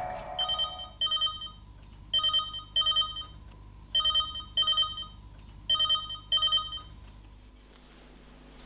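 Smartphone ringing: a ringtone of repeated double rings, four pairs of two short tones each.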